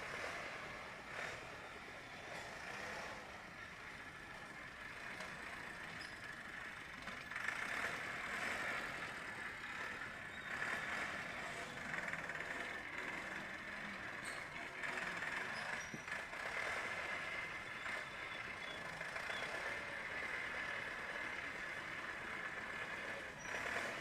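Massey Ferguson 365 tractor's four-cylinder diesel engine running steadily under load while pulling a three-disc plough, growing louder about seven seconds in.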